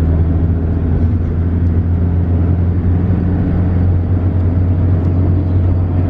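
A shuttle's engine and road noise, heard from inside the cabin while riding: a steady low hum.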